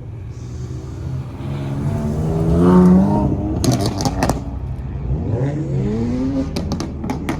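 A car engine revving twice: the pitch climbs to a loud peak about three seconds in and drops, a few sharp cracks follow, then it rises again near the end.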